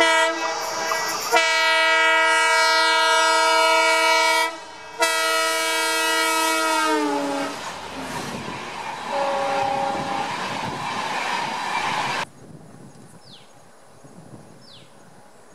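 Locomotive horn blowing a long chord of several tones, broken once about four and a half seconds in, its pitch dropping as the train passes. The noise of the coaches going by follows, with a brief second horn. After a cut about twelve seconds in, the sound is much quieter, with faint bird chirps.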